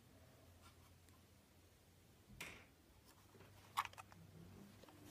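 Near silence, broken by a soft brief rustle about halfway through and a few faint sharp clicks a little later, from plastic Lego pieces being handled.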